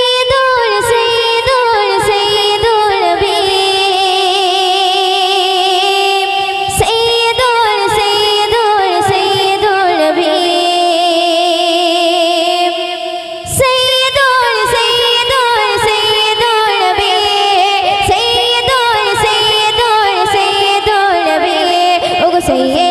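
A young woman singing a Bengali gojol (Islamic devotional song) solo into a microphone over a PA, holding long notes with vibrato. There is a short break for breath about 13 seconds in before the next line.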